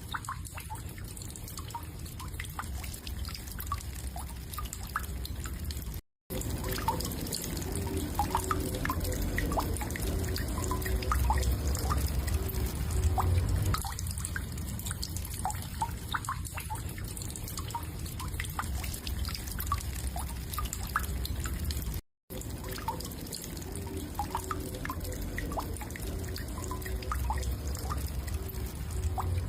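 Water dripping and trickling: many short, irregular plinks over a steady low rumble. The sound cuts out briefly twice, about six seconds in and again a little past twenty seconds, as if a looped track restarts.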